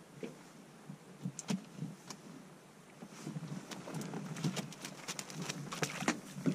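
Scattered light clicks and knocks of a fishing landing net and its fish being handled in a boat, sparse at first and much busier in the second half.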